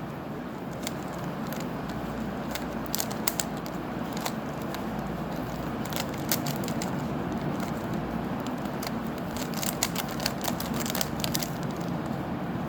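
Rubik's Cube being turned by hand: its plastic layers click and rattle in quick runs of turns with short pauses between, over a steady background noise.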